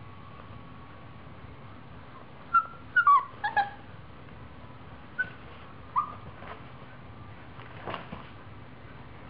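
Siberian husky puppy giving short, high-pitched yips and squeaks, a quick run of them about three seconds in and two more a few seconds later, then a single soft knock.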